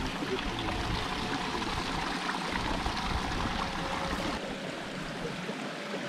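Spring water running out from under rocks: a steady flowing and trickling.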